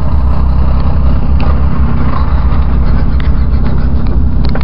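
Steady low engine and road rumble heard from inside the cabin of a Fiat Uno on the move, with a few light clicks.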